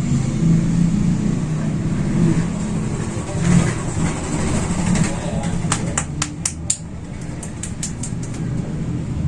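A low steady rumble, with a quick, uneven run of about ten sharp clicks in the second half.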